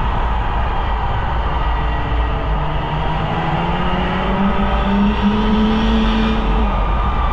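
Polaris Indy snowmobile engine running under way, its pitch climbing over a few seconds as the throttle opens and then falling off near the end, over a constant low rumble of wind on the microphone.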